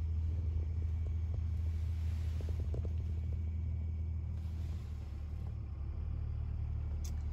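Truck engine running, a steady low rumble heard from inside the cabin.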